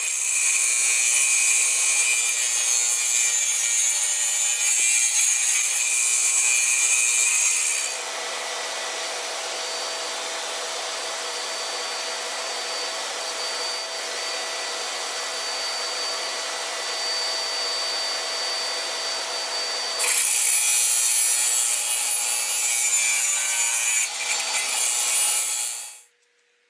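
DeWalt radial arm saw running and cutting half-inch Baltic birch plywood: a loud steady whine over a hiss of blade and wood. It drops to a lower level about eight seconds in, comes back up around twenty seconds, and cuts off sharply near the end.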